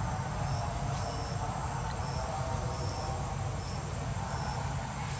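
Forest insects calling: a short high chirp repeating about once or twice a second over a thin, steady high drone, with a low rumble underneath.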